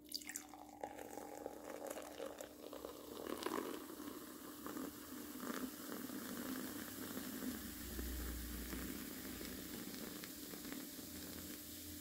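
Carbonated ginger ale poured from a can into a glass mug: a thin stream splashing in and the rising foam fizzing, soft and steady.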